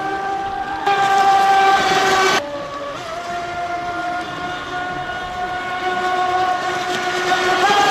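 High-pitched electric motor whine from a model boat under power, holding a steady pitch, louder for a second or so near the start, dipping briefly in pitch and then rising again near the end as the throttle changes.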